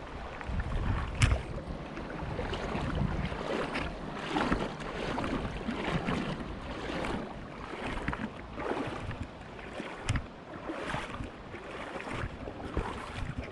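Shallow creek water running and splashing over rocks, with wind buffeting the microphone in uneven gusts. A sharp click comes about a second in.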